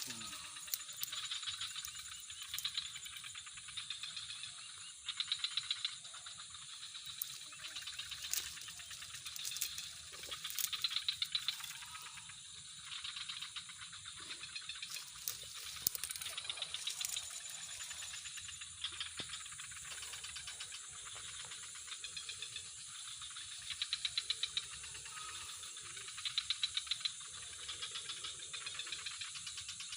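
Night insects chirping: repeated bursts of rapid ticking trills over a steady high-pitched drone.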